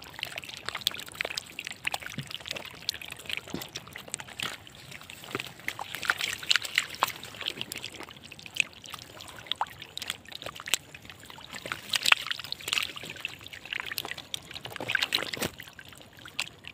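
Water splashing and trickling, with many small sharp splashes at irregular intervals.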